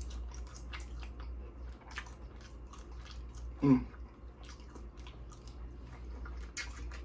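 Close-miked mouth sounds of eating Dungeness crab: wet chewing with scattered small clicks and crackles. A short vocal sound comes near the middle, over a steady low hum.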